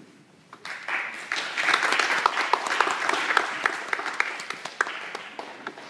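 A group of people applauding: the clapping starts about half a second in, swells, then thins out near the end.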